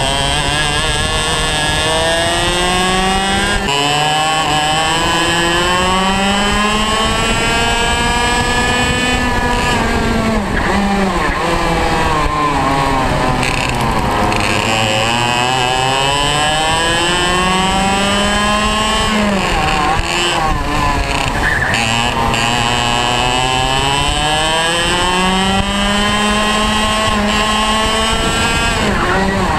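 Onboard sound of a two-stroke racing kart engine at full race pace: the pitch climbs steadily as the revs build along each straight, then falls away sharply as the driver brakes for a corner, three times over.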